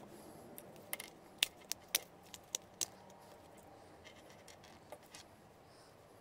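Sharp plastic clicks and taps of an 18650 lithium-ion cell being fitted into a plastic single-cell battery holder against its spring contact: about seven quick clicks between one and three seconds in, then two faint ticks near five seconds.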